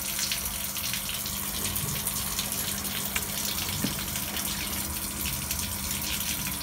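Steady rush and splash of water in a garden fish pond, with a faint steady low hum underneath.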